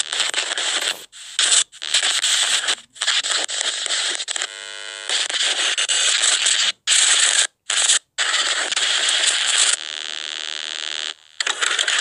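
Harsh static-like noise in choppy bursts that cut off and restart suddenly several times. A short buzzing tone breaks in about four and a half seconds in, and a quieter buzz comes near the end.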